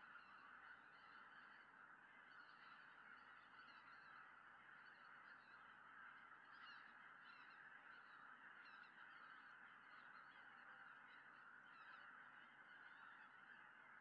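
Faint, distant chorus of a large flock of greater white-fronted geese calling in flight, many overlapping calls blending into a continuous din, with a few individual calls standing out in the middle.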